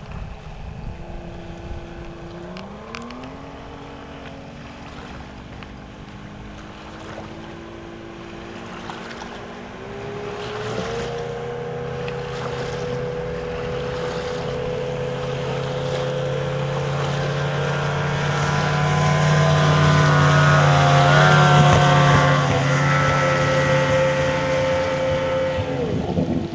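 Motorboat engine running at speed on a flyby. Its pitch climbs about two seconds in and again around ten seconds, then holds steady as the boat closes in, loudest a little past the middle. The pitch drops sharply near the end.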